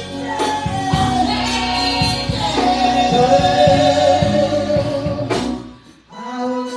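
Gospel worship music: voices singing long held notes over a steady band accompaniment. The music drops away briefly about five and a half seconds in, then comes back.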